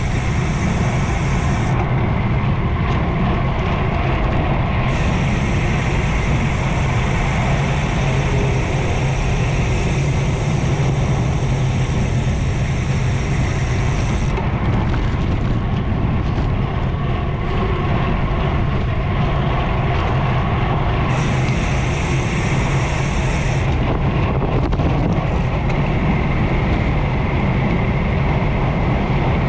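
Steady rush of wind and road noise from a road bike descending fast. A high hiss cuts in and out several times over it.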